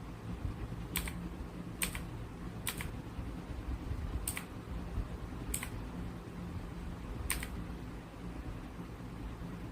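Keys of a Royal Kludge RK918 mechanical keyboard pressed one at a time: six sharp clicks at uneven gaps of roughly one to one and a half seconds, over a low steady hum.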